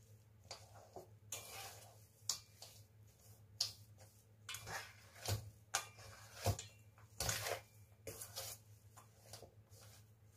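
A metal utensil scraping and knocking against a stainless steel pot while stirring thick chocolate cookie dough, in irregular scrapes and sharp clicks.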